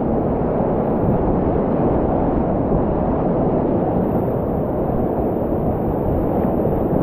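Steady, loud rush of whitewater rapids heard from a kayak in the middle of the rapid, deep and muffled with little treble.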